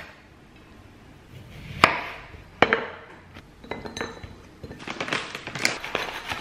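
Kitchen knife cutting through a pear and striking a wooden cutting board: two sharp knocks close together about two seconds in. Then a run of small clicks and crinkles as the pear pieces are set into a glass dish and pumpkin seeds are poured from a plastic bag.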